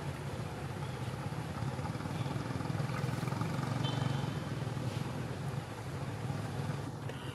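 A motor vehicle engine running as a steady low rumble, growing a little louder in the middle and easing off again.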